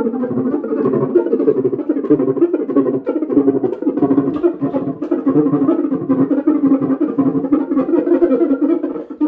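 Cuíca, a Brazilian friction drum with a metal shell, played continuously in quick rhythmic strokes, its pitched squeaking notes bobbing rapidly up and down.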